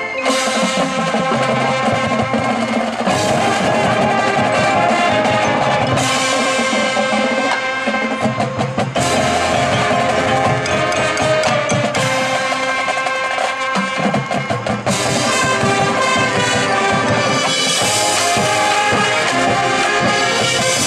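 Marching band playing its field show: brass with the drumline and percussion, marked by a sharp accented hit about every three seconds.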